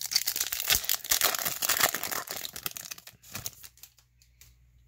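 Foil wrapper of a 2018 Topps Gallery baseball card pack being torn open and crinkled in the hands, a dense crackling that stops about three and a half seconds in.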